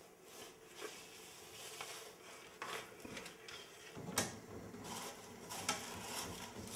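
Scattered knocks and clinks of an aluminium baking tin being handled and slid on the metal oven floor of a wood-burning cookstove. The loudest knock comes about four seconds in.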